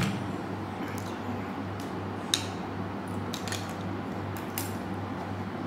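Scattered light clicks and clinks of small objects being handled, the sharpest a little past two seconds in, over a steady low hum.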